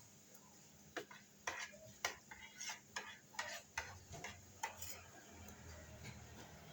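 Eating utensils tapping and scraping against a bowl of rice: a quick, uneven run of about a dozen sharp clicks over roughly four seconds, starting about a second in.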